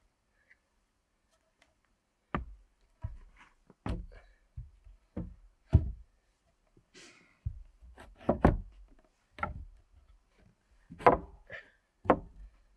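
Wooden boards knocking and thudding on a plank deck as they are laid out and fitted into a wall frame: about a dozen irregular sharp knocks, starting about two seconds in.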